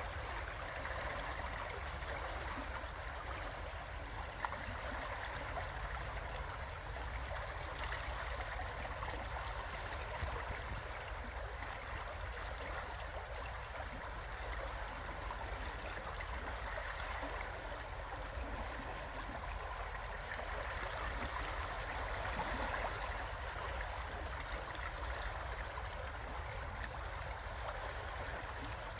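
River water flowing and gurgling over rocks: a steady, even rush with a low rumble beneath it.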